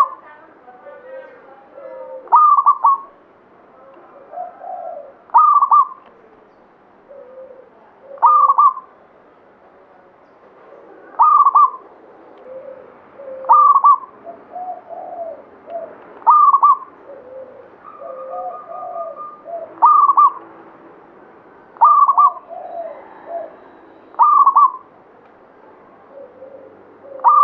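Local Javanese zebra dove (perkutut lokal) singing: its cooing song repeats about ten times, each phrase ending in a loud, higher note, roughly every two and a half to three seconds, with softer, lower coos between.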